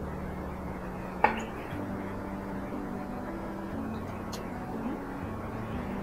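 Chef's knife cutting artichoke on a wooden cutting board. It knocks sharply once about a second in, and clicks faintly again a few seconds later.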